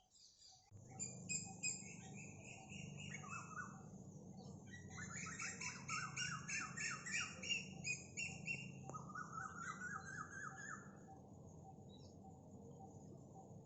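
Common mynas (Indian mynas) calling in several runs of rapid, harsh repeated notes, about four a second, over a low steady background hum.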